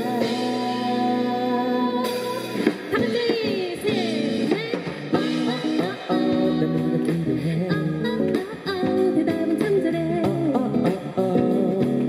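Live pop song: a woman sings over Nord Piano 4 stage piano and acoustic guitar. She holds a long note, then from about two and a half seconds in sings a run of sliding, wavering notes before the accompaniment moves on through further chords.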